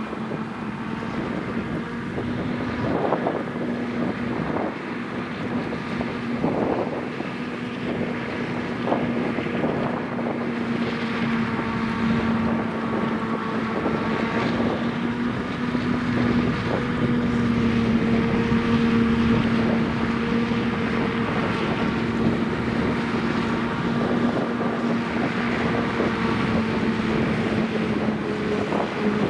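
Claas Jaguar 850 forage harvester chopping standing maize for silage, its engine and chopping gear running under load as a steady drone with a constant hum, together with the tractor pulling the trailer alongside. There are a few brief crackles in the first seconds.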